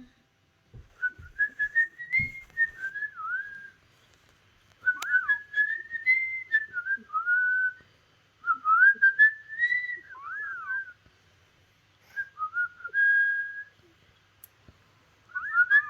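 A short whistled tune, a phrase of rising and falling notes repeated four times with brief pauses between.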